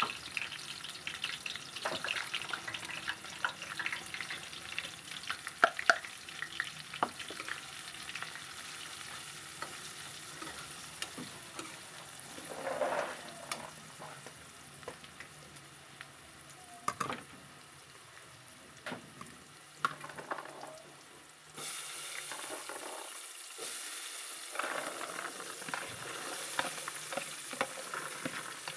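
Vegetables sizzling in hot oil in a metal wok, stirred with a metal spatula that scrapes and knocks against the pan. About two-thirds of the way in, the sizzle turns louder and hissier.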